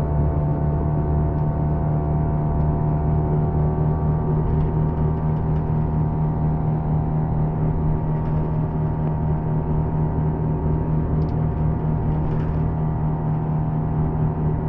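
A MAN Lion's Coach's inline-six diesel engine running steadily, an even low drone, with a few faint light clicks.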